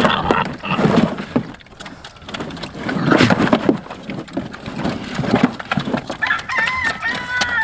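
Pigs grunting and jostling as they feed at a trough, in irregular bursts. A rooster crows near the end in one held call.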